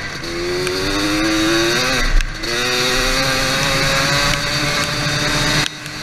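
ATV engine revving under throttle: its note climbs, breaks off briefly with a low thump about two seconds in, then climbs slowly again before dropping away near the end.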